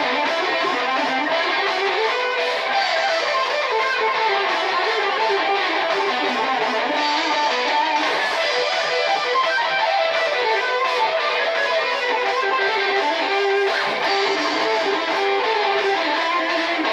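Dean ML electric guitar playing an improvised lead solo of shifting melodic runs over a heavy metal backing track in E minor.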